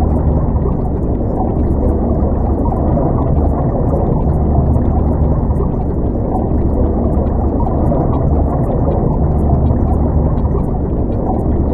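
Underwater ambience sound effect: a steady, muffled rush of water, deep and dull, with almost nothing bright in it.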